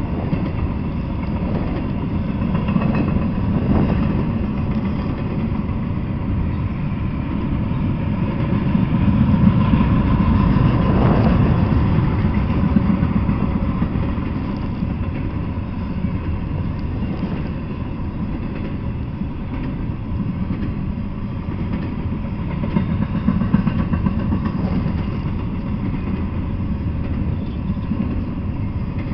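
Double-stack intermodal freight train of container-laden well cars rolling past, a steady low rumble of wheels on the rails.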